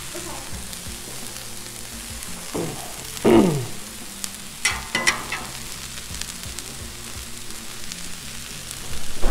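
Frozen peas, carrots, broccoli and scallion whites sizzling steadily in oil on a hot Blackstone flat-top griddle. A short falling pitched sound about three seconds in, louder than the sizzle, and a few brief sharp sounds around five seconds break in over it.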